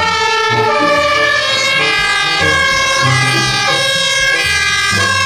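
Two-tone sirens of German fire engines, more than one sounding at once, their alternating tones overlapping continuously.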